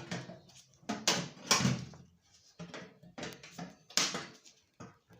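Irregular knocks and rattles of hand tools and metal being handled, strongest about a second in and again at about four seconds.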